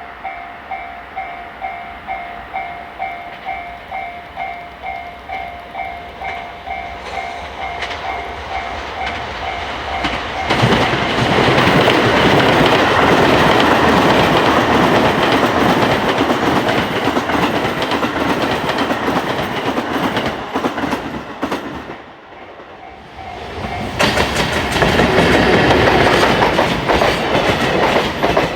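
Japanese level-crossing warning bell ringing in a steady beat, a little under two strikes a second. About ten seconds in, a train passes close by and drowns it out with loud wheel clatter. The bell is heard again for a moment in a gap before a second train passes.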